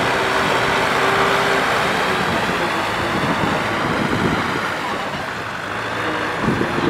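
Kubota M6040 tractor's four-cylinder diesel engine running steadily under load, pulling a trailer piled with rice sacks through deep mud.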